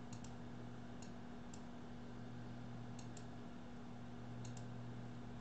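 Faint computer mouse clicks, several in close pairs a fraction of a second apart, as the font list is clicked through, over a steady low electrical hum.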